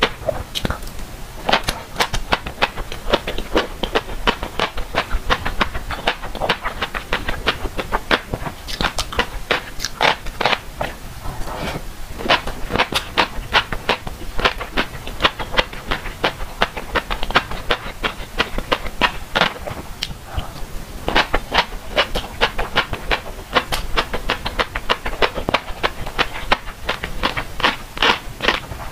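Close-miked chewing of mouthfuls of fish roe, the eggs popping and crunching in rapid, irregular clicks.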